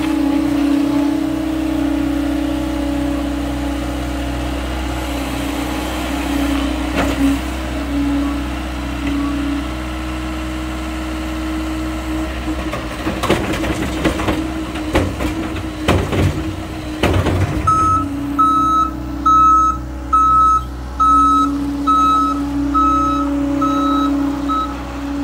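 John Deere 325G compact track loader's diesel engine running steadily, with a rattling clatter about halfway through as soil is dumped from the raised bucket into a dump truck's steel bed. Then the loader's backup alarm beeps about ten times, roughly once every 0.7 seconds, as it reverses.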